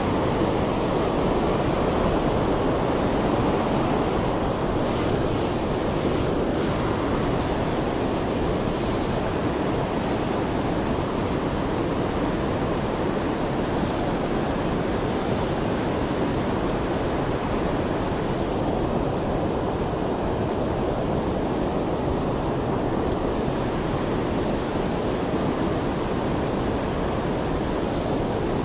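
Steady rush of flowing river water, with water spilling over a low weir.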